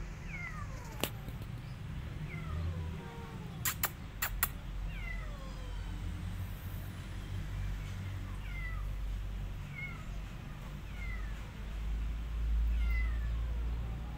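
A kitten meowing over and over, short high calls that fall in pitch, about one a second. A few sharp clicks fall about four seconds in, and a low rumble swells near the end.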